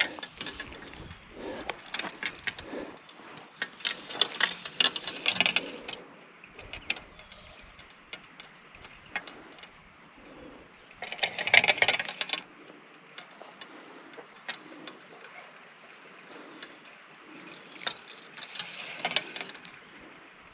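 Fishing reel being cranked in three short spells, a fast clicking, rattling whir, with small handling clicks in between as a fish is reeled in.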